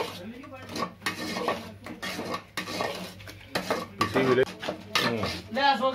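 A metal spoon stirring and scraping a thick khoya-and-sugar mixture in a metal pot, with repeated short clinks and scrapes against the pot's sides and bottom.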